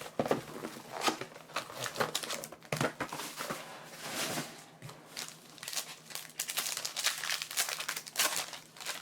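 Plastic trading-card wrapping crinkling and tearing in irregular rustles as a box of football cards is unwrapped and opened.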